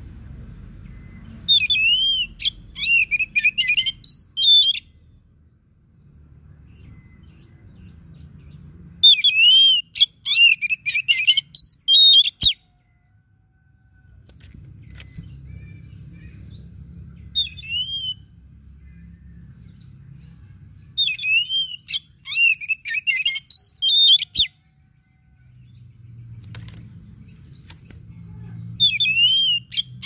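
Oriental magpie-robin (kacer) singing in loud bursts of rich whistled and warbling notes, each a few seconds long, with pauses of several seconds between them. A thin steady high tone holds in the pauses over a faint low rumble.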